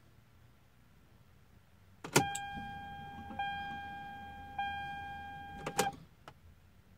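Click of the ignition key turning on in a 1997 Toyota Supra, then the dash warning chime sounding three times about a second apart, each ding fading. It is cut off by another click as the key is turned back off.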